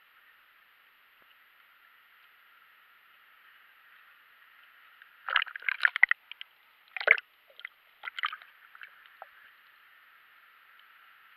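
Water sloshing and gurgling against an underwater camera housing as it breaks the surface: a cluster of splashes about five to six seconds in, then two shorter ones about seven and eight seconds in, over a faint steady hiss.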